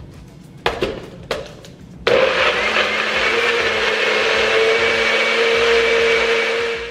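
NutriBullet blender: the cup knocks twice as it is seated on the motor base, then the motor runs for about five seconds, blending a smoothie with a steady whine, and cuts off.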